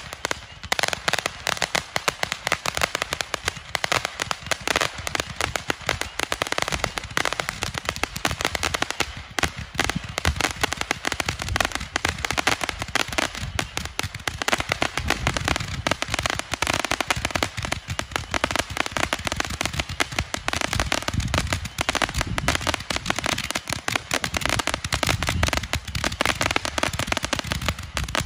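Sunwing Super Gatlin Blaster consumer firework firing nonstop: a dense, rapid crackling and popping as a stream of sparks shoots up and bursts, with deeper thumps mixed in through the second half.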